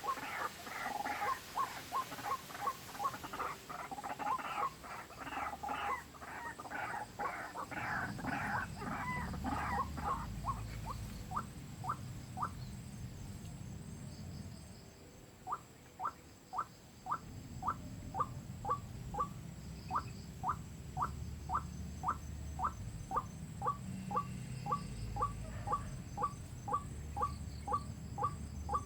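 White-breasted waterhen calls: a dense run of overlapping calls for the first ten seconds or so, then, after a short break midway, a steady series of short single notes at about two a second.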